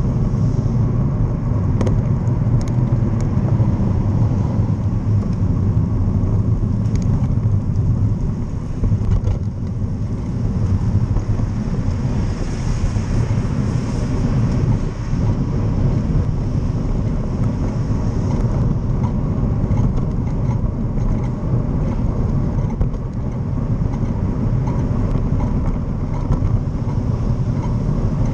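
Steady low rumble of wind and road noise at a bicycle-mounted camera's microphone while riding in city traffic, with a brighter rush about halfway through as a bus and car pass close.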